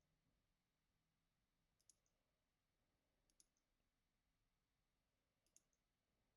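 Near silence with three faint sharp clicks about one and a half to two seconds apart, from Pokémon trading cards being handled and sorted.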